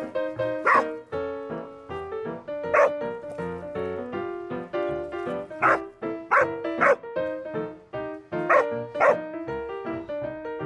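A small black-and-white dog barking while digging, about seven short sharp barks spread through, some in quick pairs, over bouncy keyboard background music.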